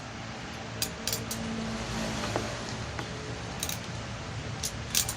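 Scattered light metallic clicks and clinks from a crimping tool being worked while stripping the outer jacket off a LAN cable, over a steady low hum.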